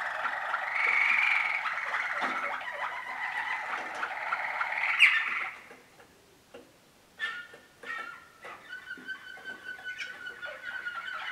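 Waterslager (Malinois) song canaries singing: a fast, dense run of notes that breaks off about six seconds in. After a short pause a new phrase of held whistled notes begins.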